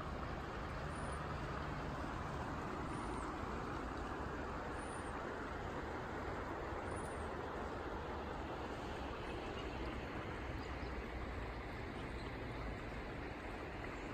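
Stream running over rocks: a steady rushing hiss of flowing water.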